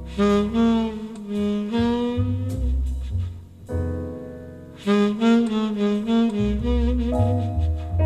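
Instrumental jazz played back through a Linn hi-fi system (Kolektor preamp, Ninka speakers): a saxophone melody of held notes over a low bass line.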